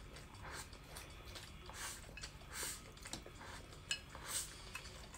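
Faint eating sounds: chopsticks clicking lightly against a bowl of rice as food is shovelled up, with soft mouth noises between. One clearer click comes nearly four seconds in.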